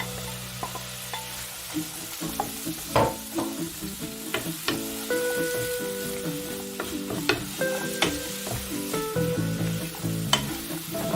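Food sizzling in a pan as it is stirred, with a handful of sharp clicks of the utensil against the pan. Soft background music plays under it.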